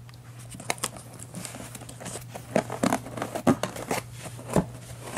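Cardboard laptop box and its packaging being handled after opening: scattered crinkling, scraping and tapping, with a few sharper knocks in the second half.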